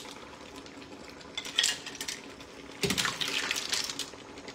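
A ladle scooping mussels, clams and tomato sauce from a steel pan into a serving bowl: shells clattering and sauce sloshing and pouring, with a sharp knock about three seconds in.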